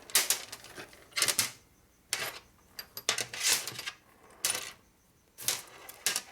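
Metal nuts clinking as they are handled and counted one by one: a series of separate sharp clinks, roughly one a second.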